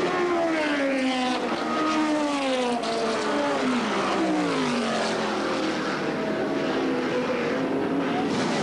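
Historic sports-racing cars going past at speed, their engine notes dropping in pitch as each one passes. Several cars follow one another with overlapping engine notes, and steadier engine notes come in the second half.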